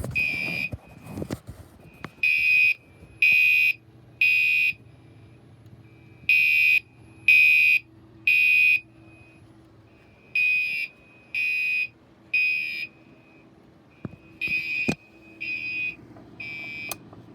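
Fire alarm sounding the temporal-three evacuation pattern: four rounds of three high-pitched beeps, each beep about half a second long, with a pause after each round.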